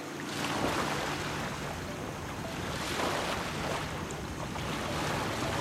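Wind buffeting the microphone over small waves lapping in shallow water, with the noise swelling and easing every couple of seconds.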